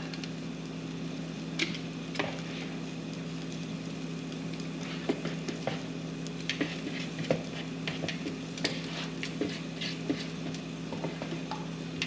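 Bread frying in a buttered pan with a steady light sizzle, over a constant low hum. Scattered light clicks and taps come from kitchen tongs against a mixing bowl as a slice of bread is soaked in egg mixture.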